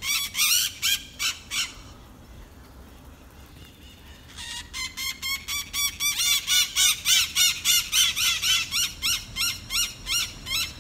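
Maritaca parakeets screeching: a few shrill calls at first, a lull of about two seconds, then a fast, steady series of shrill calls, about four a second.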